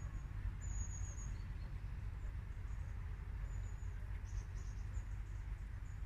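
Low, uneven rumble of wind on the microphone, with thin, high-pitched calls of small birds about a second in and again around four to five seconds in.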